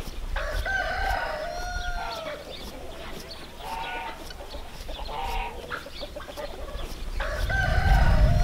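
Chickens calling: a rooster crowing several times with shorter clucking calls in between. A low rumble comes in near the end.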